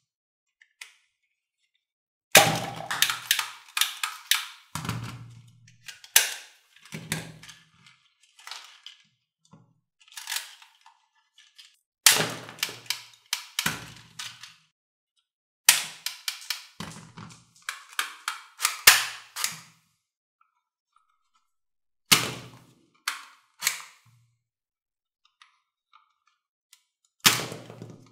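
Plastic toy guns being cocked and fired: clusters of sharp plastic snaps and clacks, several a second, some with a dull thud under them, separated by short pauses.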